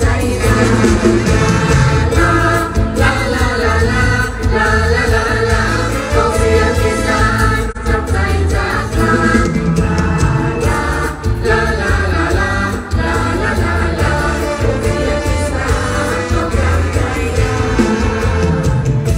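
Live Isan mor lam band music through a large outdoor PA system: singing over a heavy, steady bass beat, in the toei song style.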